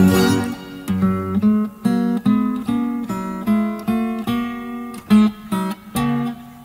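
Acoustic guitar music: a melody of single plucked notes over a low bass, played at a moderate pace without singing.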